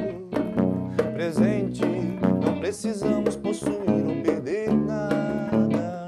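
Live band playing an instrumental passage: electric guitar with notes sliding in pitch over electric bass and a drum kit.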